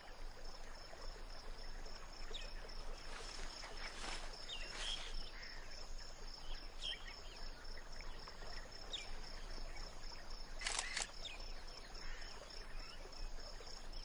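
Camera shutter clicks: a couple about four to five seconds in and a quick double click near eleven seconds. Underneath is quiet outdoor ambience with a steady high-pitched whine and faint chirps.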